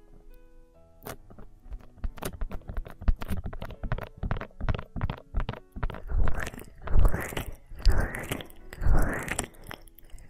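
ASMR massage sounds: hands rubbing and kneading against the microphone, giving close, crackly rustling strokes. From about the middle they settle into slow, rhythmic rubbing swells about once a second.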